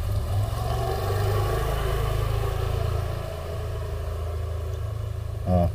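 Steady low rumble like a motor running, with a hiss over it that is stronger for the first three seconds. A brief wavering call comes near the end.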